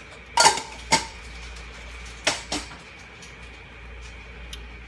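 Stainless-steel kitchenware clinking: a spoon knocking against steel spice containers and a steel mixing bowl, four sharp clinks in two pairs, the loudest about half a second in.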